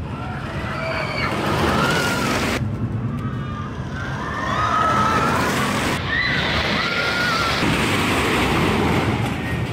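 GCI wooden roller coaster train rushing over its wooden track down a drop, a loud, steady roar, with riders screaming over it.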